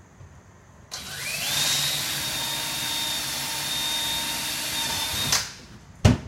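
Electric drill with a 3/16-inch bit boring a screw hole through a wooden cabinet door: the motor spins up with a rising whine about a second in, runs steadily for about four and a half seconds, then stops. A sharp knock follows near the end.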